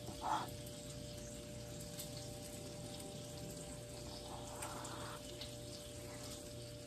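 Lionsteel M2M knife slicing through a ripe tomato on a wooden cutting board: a soft wet cut just after the start and a longer one about four and a half seconds in, over a steady low hum.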